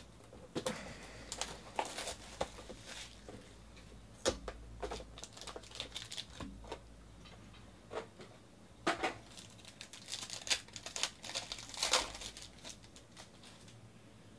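Foil wrapper of a Panini Elements football card pack crinkling in the hands as it is picked up and opened, with trading cards being handled: a run of short sharp crackles, loudest about nine and twelve seconds in.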